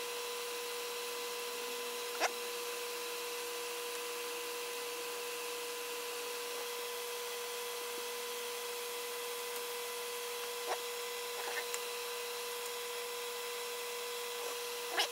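Small clicks and taps of hand soldering on a circuit board: tip and wire touching the board a few times, the sharpest about two seconds in. A steady hum and hiss lie under it.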